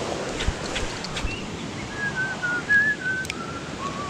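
A run of short whistled notes starting about two seconds in, stepping unevenly down in pitch. A few light clicks come before it, over a steady background hiss.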